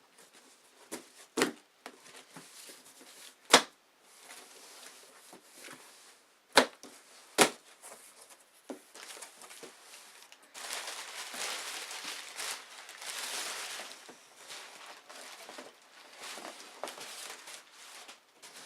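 Packaging being handled and opened by hand: a few sharp knocks and clacks, then a long stretch of crinkling and tearing from about halfway through.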